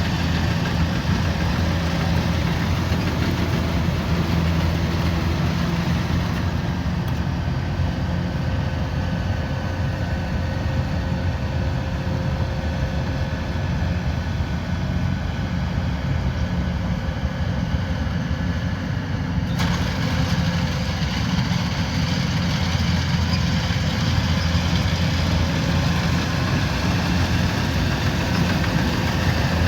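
Kubota DC105X combine harvester's diesel engine and machinery running steadily with a deep, even drone. The higher hiss drops away for a while and comes back abruptly about two-thirds of the way through.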